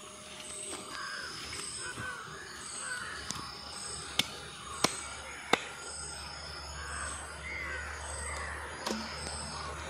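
A knife chopping duck meat on a wooden block, with three sharp knocks in the middle. Crows caw in the background, and a high chirp repeats a little more than once a second.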